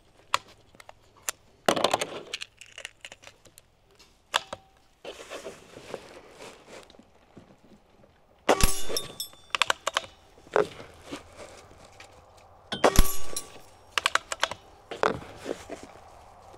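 Benjamin Marauder PCP air rifle being handled: bolt clicks as it is cycled and loaded. Then two shots about four and a half seconds apart, each followed by a short metallic ring as a pellet strikes a steel target. A few more clicks follow the second shot.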